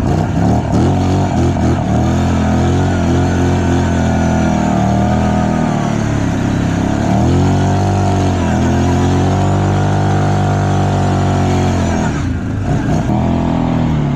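Kawasaki Brute Force 750 ATV's V-twin engine running hard under throttle, its revs rising and falling repeatedly, easing off briefly about twelve seconds in.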